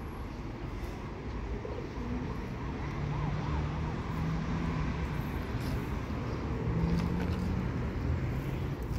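City street traffic: motor vehicles passing over a steady background rumble, with a low engine hum swelling twice as vehicles go by.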